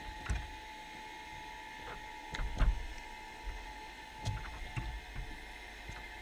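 Underwater recording from inside a wire fish trap: a few short low knocks and thumps, the loudest cluster about two and a half seconds in, over a steady hiss and a faint steady whine.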